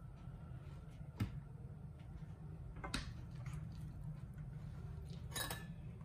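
Steel spoon scooping thick, sticky khichu dough out of a nonstick frying pan, with a few faint clinks and scrapes: one about a second in, one around three seconds, and a short cluster near the end, over a steady low hum.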